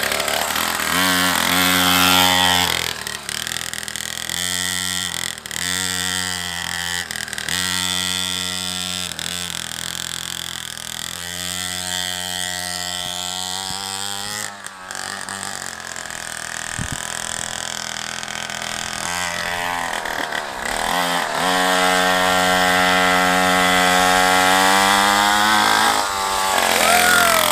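Small 50cc two-stroke mini dirt bike engine revving, its pitch rising and falling over and over in quick blips and longer pulls. Near the end it holds a steady high pitch at high revs for several seconds, then drops off.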